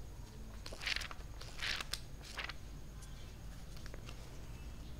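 Pages of a paperback book being flipped and opened by hand: soft paper rustles, with three brief swishes starting about a second in, and small handling clicks.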